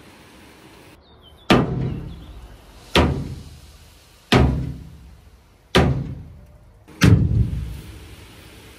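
Five heavy blows, evenly spaced about a second and a half apart, each ringing down over about a second.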